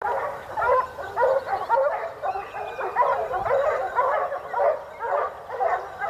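A pack of dogs barking and yelping at a distance, many calls overlapping in an unbroken run of several a second.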